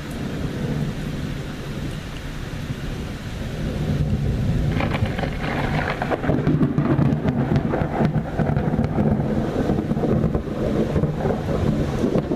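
Rolling thunder with rain falling: a low rumble that swells about four seconds in into a long, crackling peal.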